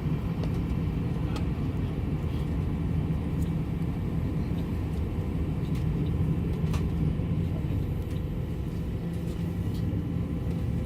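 Steady airliner cabin noise: a constant low drone of the jet engines and airflow, with a few faint clicks.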